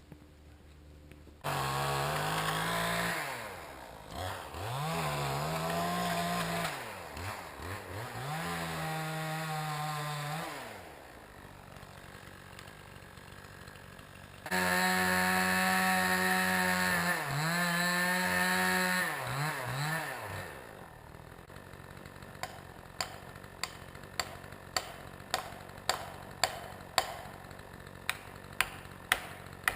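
Two-stroke chainsaw starting up sharply about a second and a half in and revved in repeated bursts, its pitch rising to full throttle and falling back between them, for about twenty seconds. After the saw stops, a run of sharp ticks follows, about one and a half a second and growing louder.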